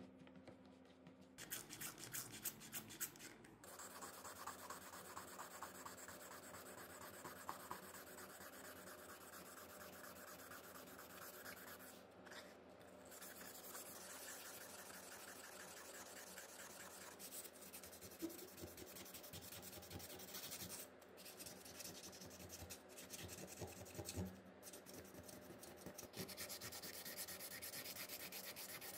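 Hand sanding a motorcycle headlight lens with a small piece of sandpaper: faint, quick back-and-forth rubbing strokes, broken by a few short pauses.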